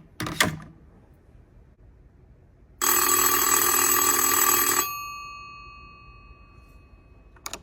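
A vintage-style rotary telephone rings once for about two seconds, a bright bell ring whose tone fades out slowly after the ring stops. Its handset clacks just after the start as it is set down, and clicks twice near the end as it is lifted to answer.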